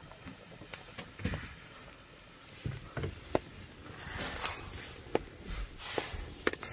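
Water boiling in a steel wok over a wood fire, swishing as a whole octopus is dipped in and swirled with a ladle, with scattered light clicks.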